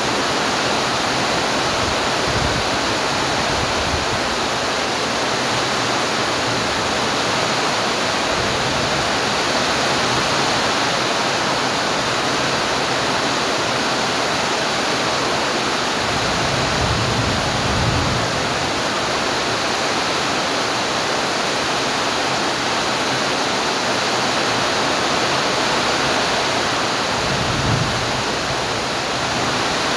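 Steady hiss of rain falling, with a low rumble about halfway through and another near the end.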